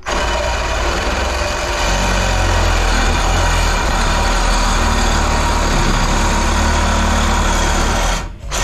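Reciprocating saw cutting through aluminum tubing clamped in a vise, running steadily for about eight seconds and then stopping near the end.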